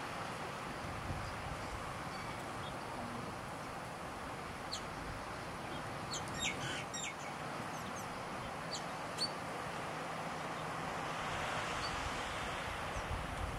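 Outdoor ambience: a steady hiss with scattered short, high bird chirps, several close together in the middle.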